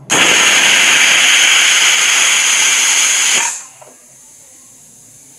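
Aluminium pressure cooker's weighted whistle valve venting steam in one loud hissing whistle of about three and a half seconds, which cuts off abruptly to a faint hiss. The cooker is at pressure, and the whistles are counted to time the cooking.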